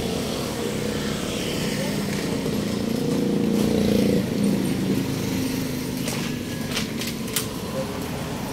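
Street traffic: a motor vehicle's engine running and passing close, loudest about three to four seconds in. A few sharp clicks come near the end.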